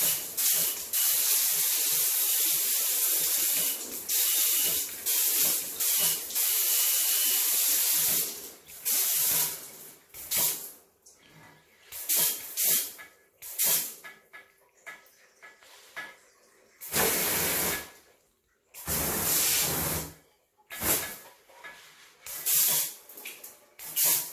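Water being sprayed in hissing spurts: a near-continuous spray for about the first eight seconds, then a run of separate short squirts.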